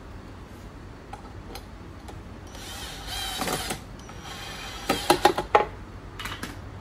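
A screwdriver driving screws into a flat-pack shoe cabinet's bars by hand: a scraping rasp about two and a half seconds in, then a quick run of sharp clicks about five seconds in and a few lighter clicks near the end.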